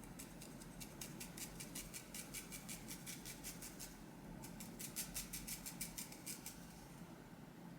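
Hair-cutting shears snipping through wig hair: quick, faint snips at about six a second in two runs, with a short pause between them.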